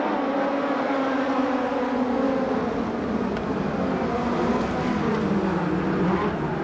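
Several USAC midget race cars running hard on a dirt oval, their engines overlapping in a steady drone whose pitch rises and falls a little as the cars go through the turns.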